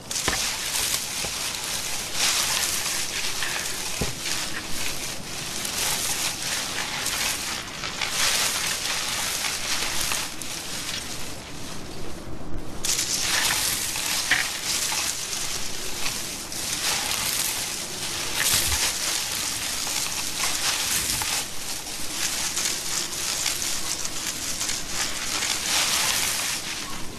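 Leaves and branches rustling and crackling in irregular surges as western black crested gibbons move through the tree canopy, with a brief break about twelve seconds in.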